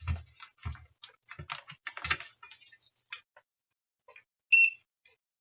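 Light irregular clicks and taps of multimeter probes and tools on a circuit board, then one short high beep from the multimeter's continuity tester about four and a half seconds in, the meter signalling near-zero resistance across a shorted power rail.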